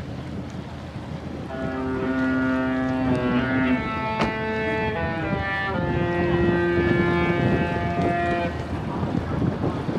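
Cruise ship's musical horn sounding a tune of several chord-like notes that change pitch every second or so, stopping about a second and a half before the end. Wind buffets the microphone throughout.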